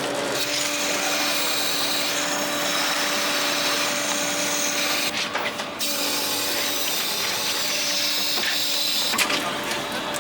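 Strong wind and driving rain buffeting the camera's microphone: a steady, loud rushing noise, with a faint steady hum underneath.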